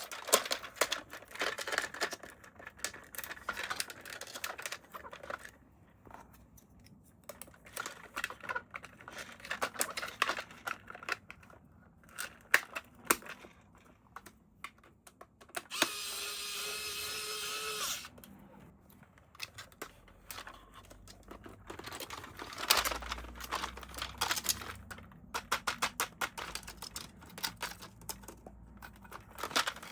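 Toy packaging and plastic toy parts being handled: crinkling, clicks and taps. About halfway through, a steady tone sounds for about two seconds.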